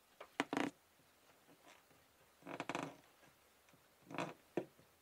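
Needle-nose pliers pushing a wire into the crevice behind a rubber door gasket: a few short squeaks and scrapes, two together near the start, a longer one in the middle and two more near the end.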